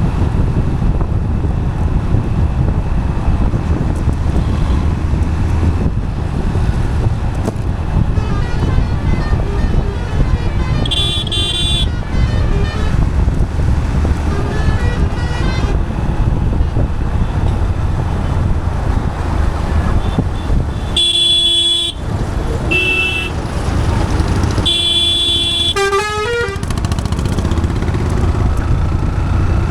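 Road traffic with a steady rumble and wind noise on the microphone. Vehicle horns honk several times: once about eleven seconds in, then again around twenty-one, twenty-three and twenty-five seconds. The last honk falls in pitch as the vehicle passes.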